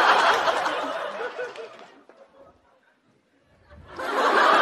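Studio audience laughing. A wave of laughter dies away about two seconds in, and a second swell of laughter rises near the end.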